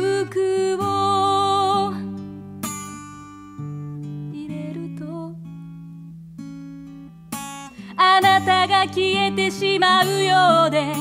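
Acoustic-guitar folk song with a woman singing. After about two seconds the voice drops out for a quiet passage of sustained guitar notes, and it comes back, louder, about eight seconds in.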